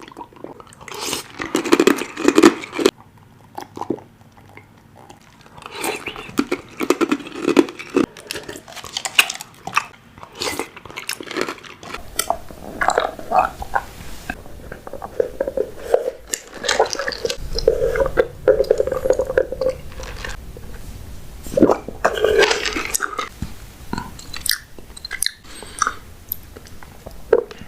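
Close-miked chewing and biting of boba tea's tapioca pearls, in irregular wet bursts.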